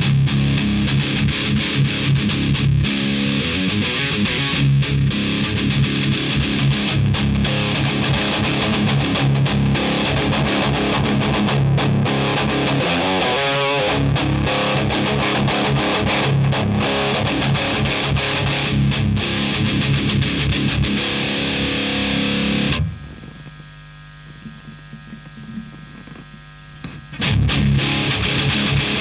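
Heavily distorted electric guitar played through a Madbean Upper Decker, a very high-gain amp emulator pedal. The playing drops out about three quarters of the way through, leaving a much quieter steady hum for a few seconds, then comes back in near the end.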